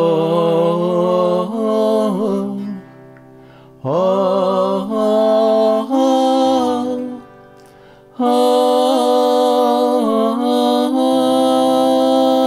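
A man's singing voice run through a vocal harmony processor, which adds harmony voices that move with his melody, including the seventh of the chord. He sings three long phrases, breaking at about 3 and 8 seconds in, over sustained electric guitar chords.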